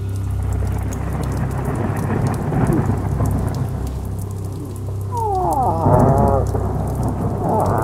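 Heavy rain with rolling thunder. About five seconds in, a long moaning moose call slides down in pitch, and near the end a second, wavering moaning call begins.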